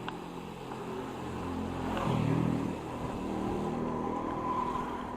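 A motor vehicle engine passing by, getting louder to a peak about two seconds in and then easing off.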